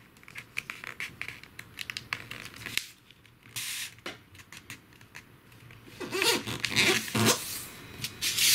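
A sheet of paper rustling and crinkling as it is folded by hand, with short scratchy scrapes as fingertips press along the creases. It gets busier and louder in the last couple of seconds.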